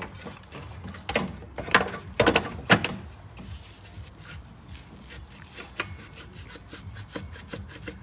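Metal exhaust parts knocking and clunking as a Sportex back box is worked onto the exhaust pipe, followed by a run of light clicks and scrapes.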